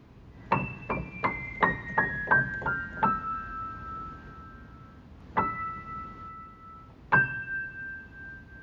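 Soft piano music: a quick run of about eight notes stepping downward, then two single notes or chords a couple of seconds apart, each left to ring out.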